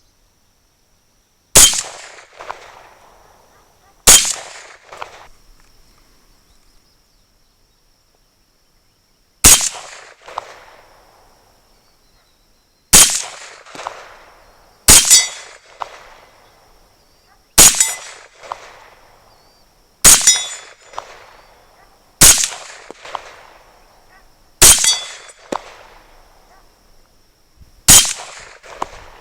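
M1 carbine firing .30 Carbine surplus ball rounds, semi-automatic: ten single shots at an uneven pace, two to five seconds apart, each followed by a short echo that dies away within about a second.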